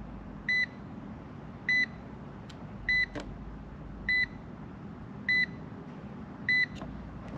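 Digital multimeter's beeper sounding short, high beeps at a steady pace, about one every 1.2 seconds, six in all, over a faint low hum. A couple of faint ticks fall between the beeps.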